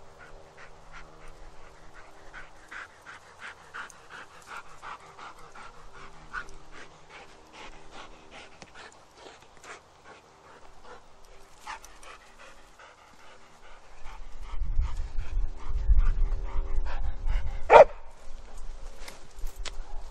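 A dog panting quickly and hard after running to fetch. Near the end there is loud close rustling and one sharp swish.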